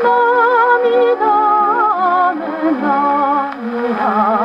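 Orchestral accompaniment of a 1947 Japanese kayōkyoku record playing from a 78 rpm shellac disc on an acoustic Victor Victrola phonograph, a melody with strong vibrato. The sound is thin, with no deep bass and no high treble.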